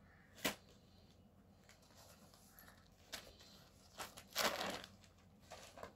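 Cotton saree being handled and unfolded: faint rustling of cloth with a few soft taps and clicks, and a louder swish of fabric about four and a half seconds in.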